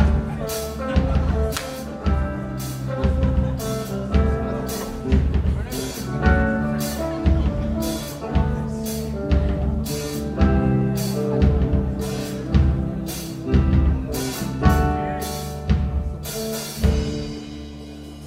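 Band music with a steady drum beat and sustained bass and chords; the beat stops near the end and the last notes ring out and fade.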